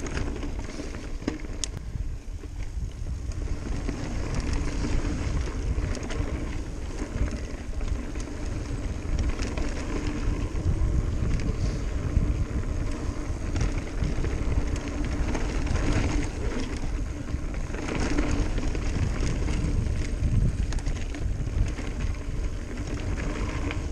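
Mountain bike rolling fast down a dirt singletrack: tyres running over packed dirt, scattered knocks and rattles from the bike over bumps, and steady wind rumble on the GoPro's microphone.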